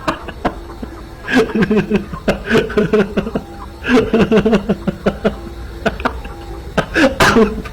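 People laughing in several loud bursts of choppy chuckles, with sharp clicks and knocks between them.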